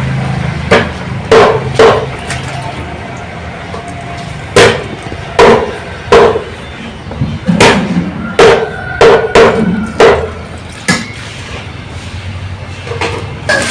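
Heavy knife chopping on a wooden cutting board: about a dozen hard, irregular strokes, in small groups with pauses between them.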